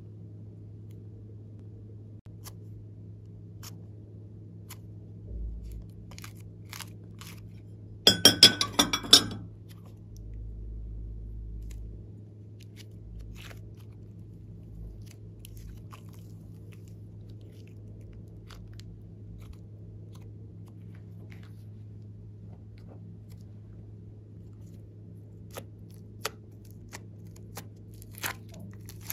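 Glossy slime being squeezed and pressed by hand, making scattered soft sticky pops and clicks. About eight seconds in there is a dense burst of loud crackling pops. A steady low hum runs underneath.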